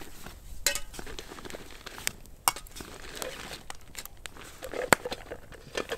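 Camp cookware being handled: a few sharp metal clinks and knocks scattered through, with some rustling between them.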